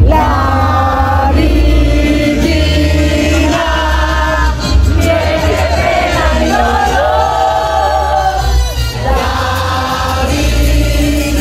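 Music with singing: sustained, gliding vocal notes over a strong bass line.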